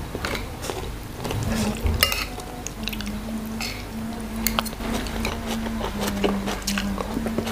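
Metal spoon and fork clinking and scraping against a ceramic plate of rice and a bowl of soup: a string of sharp clicks, the loudest about two seconds in.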